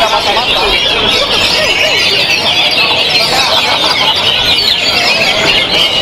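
Many caged oriental magpie-robins (kacer) singing at once: a dense, unbroken chorus of fast, high warbling and chirping notes, the birds' songs overlapping throughout.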